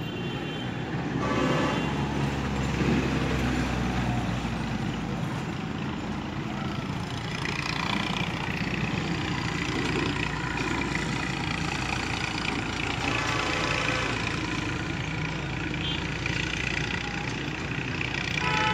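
Steady rumble of nearby road traffic, with short pitched sounds a few times through it.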